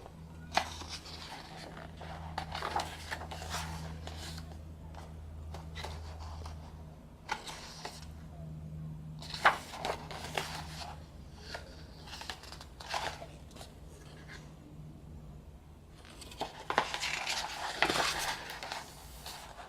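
Hands handling the album's paper contents: booklets and cards rustling and being shuffled, with scattered sharp clicks and taps, busiest near the end.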